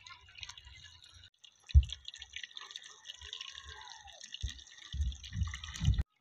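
Fish pieces frying in hot oil in a wok, a steady crackling sizzle. Low thumps come about two seconds in and again near the end, and the sound cuts off suddenly just before the end.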